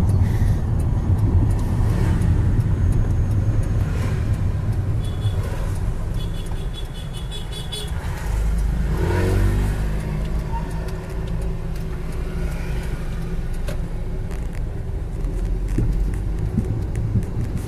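Steady low rumble of a car's engine and road noise heard from inside the cabin while driving, with a pitched vehicle sound rising and falling about halfway through.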